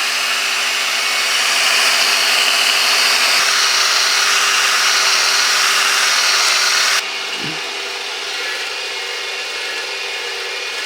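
A power tool running steadily. It drops abruptly to a lower level about seven seconds in.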